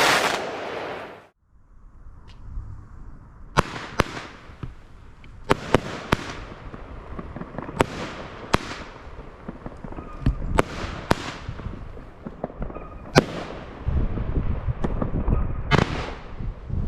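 Weco Goldfinger consumer firework going off: a dozen or so sharp bangs at irregular intervals, one every second or so, over a steady crackling hiss, with a heavier rumble building near the end. Before it, about a second of another firework cuts off abruptly.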